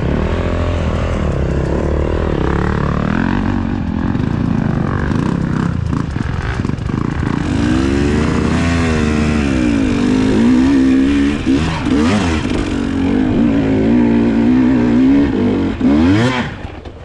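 GasGas EC300 two-stroke dirt bike engine revving up and down on the throttle under load, its pitch rising and falling repeatedly. Near the end it gives one sharp rev that climbs quickly before the sound drops away.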